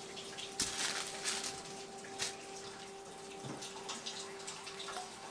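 Water running and splashing, like a kitchen tap rinsing something, with a steady hum underneath.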